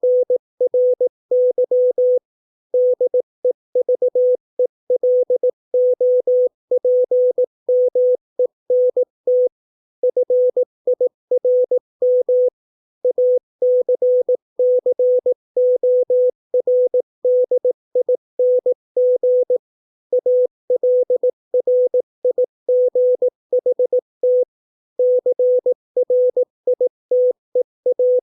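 Morse code practice tone: one steady beep keyed on and off into dots and dashes, sending English words at 18 words per minute, with short pauses between words.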